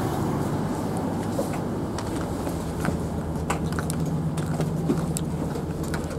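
Steady low hum inside the carriage of a Class 221 Super Voyager diesel-electric train standing at the platform, a low steady tone growing stronger about two and a half seconds in. Scattered light clicks and knocks come through over it.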